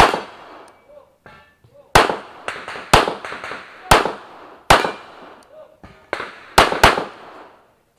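A semi-automatic pistol fires about seven shots in a string, the last two in a quick double. Each shot is a sharp crack with a short echoing tail.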